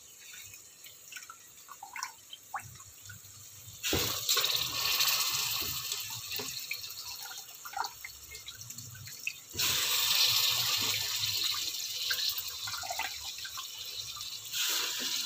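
Water pouring into a pressure cooker pot of soaked rice and lentils, in long steady pours that start about four seconds in and again near ten and fifteen seconds, with a few drips before.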